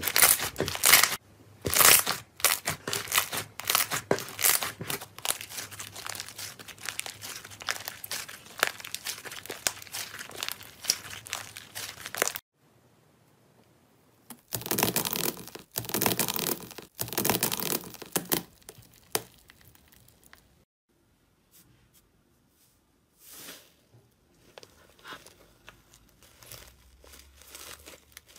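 Slime squeezed and pressed in the hands, a dense run of crackles and clicks. After a short silent break, gold foil over slime crinkles loudly for a few seconds as a metal potato masher presses into it. Fainter sticky rustling of fluffy slime being stretched near the end.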